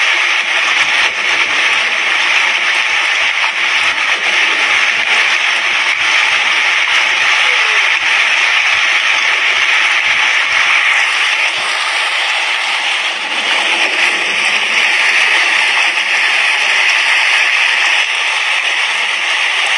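Heavy rain falling on an asbestos-cement roof: a steady, dense hiss made of countless small drop impacts, with a brief slight easing about two-thirds of the way through.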